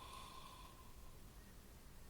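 Near silence: the pause between two snores, with only faint low room noise.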